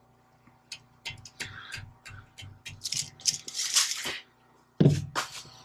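Hand work on a steel tube: a marking pen scratching a cut line across the steel and a tape measure being handled, in short irregular scrapes and clicks, with a louder knock about five seconds in.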